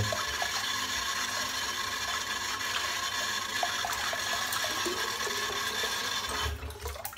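Water running steadily, then shutting off near the end.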